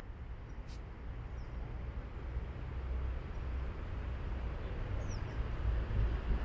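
Outdoor riverside ambience: a steady low rumble with a couple of short, falling bird chirps, one about a second and a half in and one about five seconds in.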